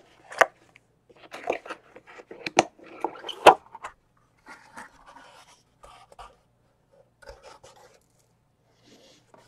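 A cardboard box being opened by hand. There are a few sharp knocks and taps as the lid is handled, and scraping as the cardboard lid slides up off the box, then fainter rustling of cardboard for the rest of the time.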